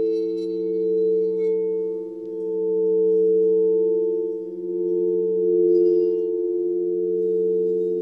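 Sound-healing drone of sustained pure tones built on the 432 Hz and 528 Hz frequencies, several pitches layered and slowly swelling and fading. Faint high shimmers come in near the start and again about six seconds in.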